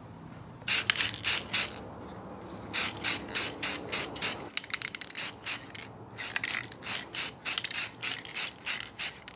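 Aerosol spray-paint can putting a light coat of black paint on a part. It gives a run of short, sharp rattling hisses, about three a second, starting under a second in and pausing twice.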